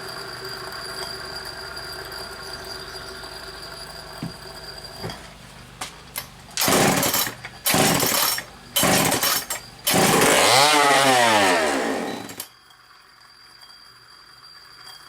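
An old Poulan 306A two-stroke chainsaw with no chain fitted, running on a squirt of gas put straight into the carburetor. It runs low and steady at first, then revs in three short loud blasts and a longer rev. It cuts out suddenly about twelve seconds in, once the priming fuel is spent.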